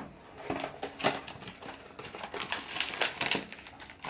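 A cardboard blind box being opened by hand, its card and foil packaging crinkling and crackling in a quick run of small clicks that thickens from about two seconds in.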